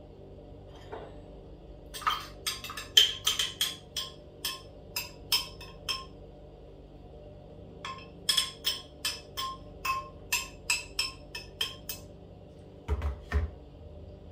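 Repeated quick knocking on an upturned blender jug, about four or five knocks a second in two runs, to shake thick strawberry slush out of it. Near the end the jug is set down on the counter with a couple of heavier thumps.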